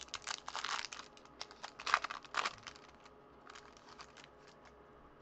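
Foil wrapper of a Topps baseball card pack being torn open and crinkled as the cards are slid out. The crackling is densest in the first three seconds, loudest about two seconds in, then trails off to a few light crinkles.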